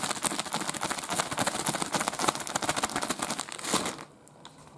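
Gallon zip-top plastic bag crinkling and rustling rapidly as chicken wings are shaken inside it in seasoned flour, stopping about four seconds in.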